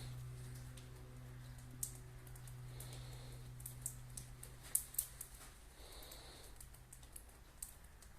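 Scattered faint light clicks and taps over a low steady hum, which fades out about seven seconds in.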